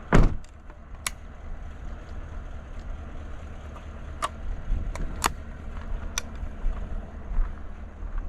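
A single 20 gauge shotgun shot right at the start, loud and sharp with a short trailing boom, followed by a few quieter sharp clicks and knocks, over the low steady rumble of an idling vehicle.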